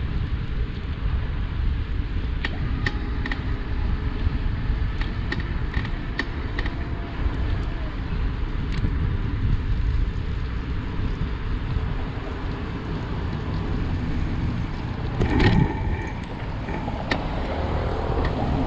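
Cowboy C4 e-bike's crank and bottom bracket creaking: short sharp clicks repeating irregularly, with one louder knock about 15 seconds in, over a steady low rumble.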